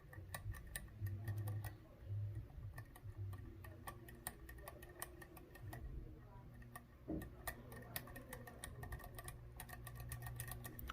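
Faint, irregular metallic clicking and ticking as a lock pick works the pins of a six-pin Medeco D11 biaxial lock cylinder under tension, with a few low dull thumps underneath.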